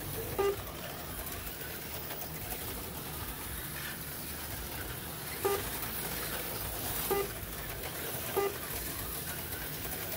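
HO-scale slot cars running on the track, a steady high whir and hiss. Four short, high tones sound over it, at about half a second, five and a half, seven and eight and a half seconds in.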